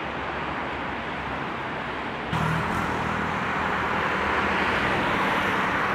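Street traffic noise: a steady rush of passing vehicles. It steps up louder about two seconds in, with a faint low hum underneath.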